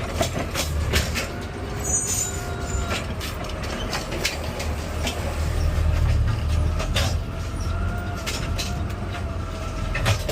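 Garbage truck's diesel engine running raised under hydraulic load while the automated side-loader arm cycles a heavy cart, its hydraulic pump giving a wavering whine. Knocks and clatters of the arm and cart come through it.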